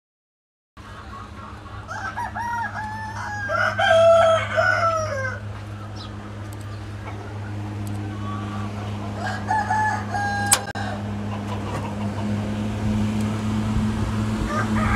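Roosters crowing several times, loudest about four seconds in, with a shorter crow about ten seconds in, over a steady low hum. A sharp click comes near the end of the later crow.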